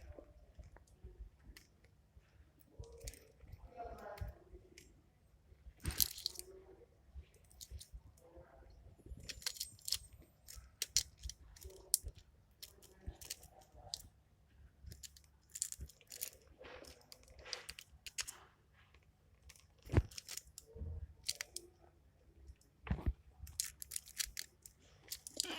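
Sporadic small clicks and taps from handling a smartphone's parts and small tools during reassembly, with a few sharper clicks standing out.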